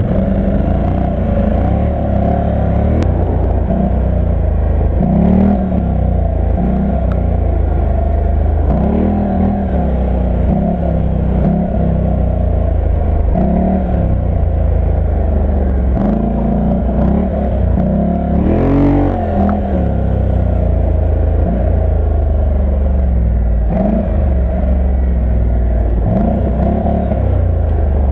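ATV (quad bike) engine under load on a rough dirt trail, its pitch rising and falling again and again as the throttle is opened and eased, over a steady low rumble. About two-thirds through comes one harder, higher rev.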